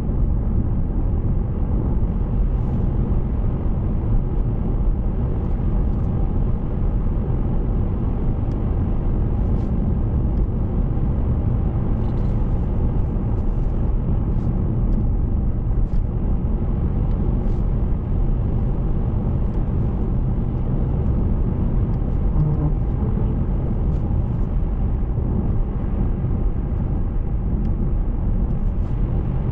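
Steady road and engine noise of a car driving, even throughout with no change in level.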